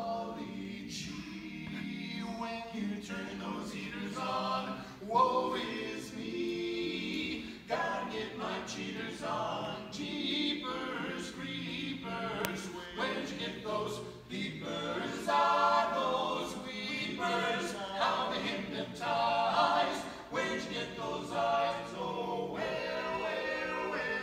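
A male barbershop quartet singing a cappella: four men's voices in close four-part harmony, with no instruments.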